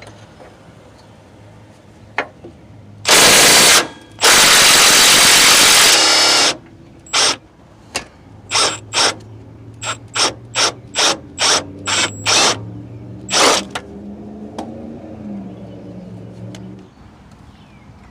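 Impact wrench hammering on the 18mm bolts of a Jeep Grand Cherokee's driver's side motor mount: two long bursts, then a quick series of about a dozen short trigger pulses.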